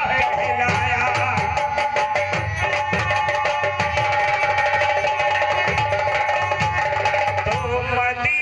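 Live instrumental music: drums played in a quick, busy rhythm under a steady held melodic note.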